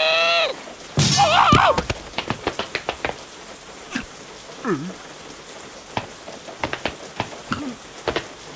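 Cartoon rain: a soft hiss with many separate drops tapping and plinking at uneven intervals. A larva character gives a short squeal at the start and a wavering, warbling squeal about a second in.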